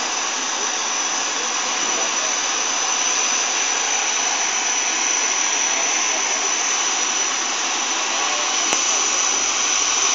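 Steam locomotive letting off steam: a steady hiss that does not let up and has no chuffing beat, with one sharp click near the end.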